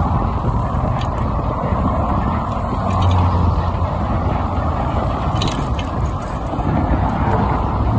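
Electric bike being ridden over a paved sidewalk, its frame and handlebar gear rattling and clicking over the ground with a steady rumble.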